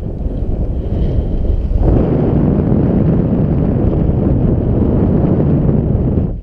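Airflow buffeting an action camera's microphone in paraglider flight: a loud, dense low rumble of wind noise that strengthens about two seconds in.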